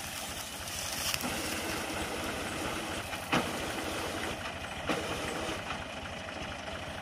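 Diesel tractor engine running steadily while driving a tractor-mounted reaper binder that is cutting standing wheat, with a few short sharp clicks from the machinery.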